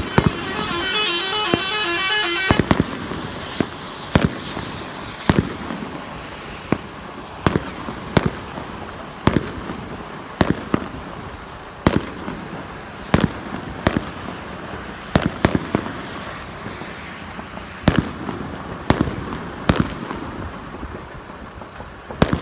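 Aerial fireworks bursting: an irregular string of sharp bangs, often one to two a second, with a dense rapid crackle over the first two seconds or so.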